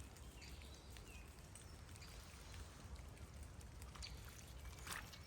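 Quiet woodland ambience with a few faint bird chirps and a low rumble, and a brief rustle near the end.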